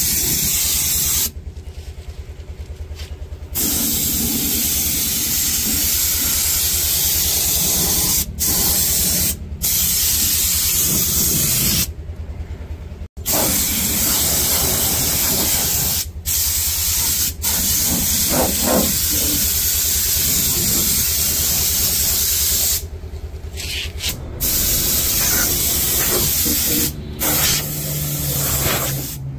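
Spray gun spraying rubberised underbody anti-rust coating: long stretches of loud hiss, broken by about eight short pauses, with a steady low hum underneath.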